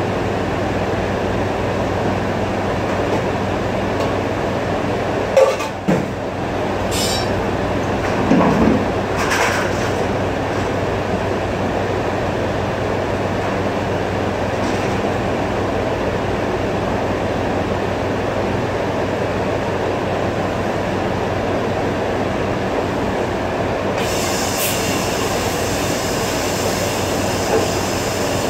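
Steady mechanical drone with a low hum from commercial dish-pit machinery and ventilation. A few short knocks and clatters come about a fifth to a third of the way in. A higher hiss joins near the end.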